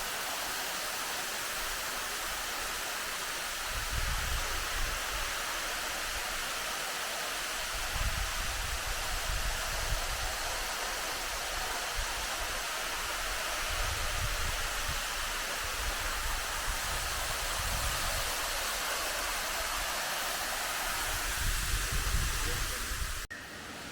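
Tumalog Falls' waterfall rushing in a steady, even hiss of falling water, with a low rumble swelling every few seconds. The sound cuts off abruptly just before the end.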